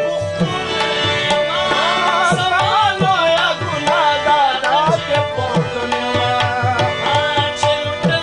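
Harmonium and tabla playing an instrumental passage of a Pashto ghazal, with sustained reed tones, a melody line and a steady run of tabla strokes.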